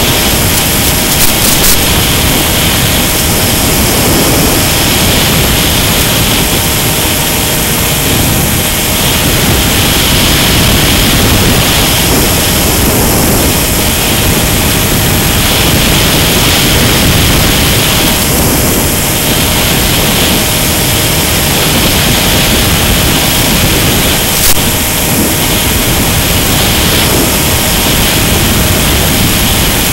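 Steady, loud rushing hiss on the onboard audio of a Mini Sky Walker FPV model plane in flight, with a faint steady hum underneath and a brighter band that swells and fades every few seconds.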